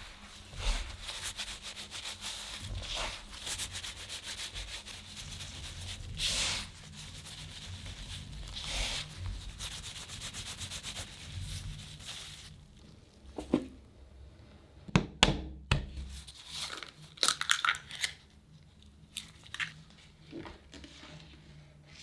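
Gloved hands rubbing butter into flour in a wooden bowl: a steady gritty rustling that stops about halfway through. After it come several separate sharp knocks and taps.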